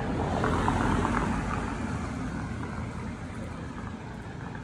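Street traffic: a car passing, loudest about a second in, then easing to a steady traffic hum.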